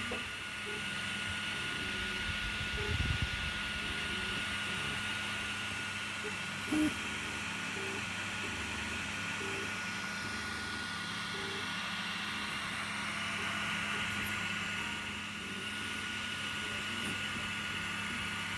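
Prusa i3 3D printer at work: a steady fan hum with stepper motors whining in short, shifting tones as the print head moves. Two brief knocks, about three and seven seconds in.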